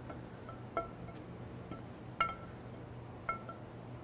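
Camshaft of a Jeep 4.0 L inline-six sliding out of the engine block, its lobes and journals knocking against the cam bearing bores: a few light, ringing metal clinks, the loudest a little over two seconds in.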